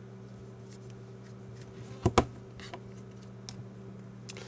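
Small scattered clicks and taps of a Torx screwdriver and the plastic case of a GPS unit being handled as the last back-cover screws come out, with two sharper knocks close together about two seconds in. A steady low hum runs underneath.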